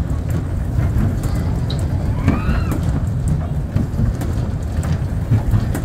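Steady low rumble of a kiddie race-car ride running, its small cars rolling around the track, with faint rattling clicks and a child's brief call about two seconds in.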